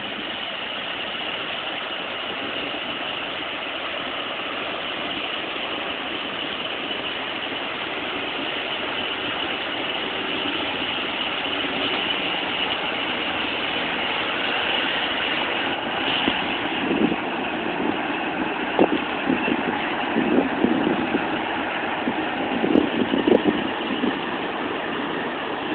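Towboat's diesel engines running steadily as it pushes a tow of barges past, growing a little louder as the boat draws alongside. In the second half, irregular low rumbling bursts join in.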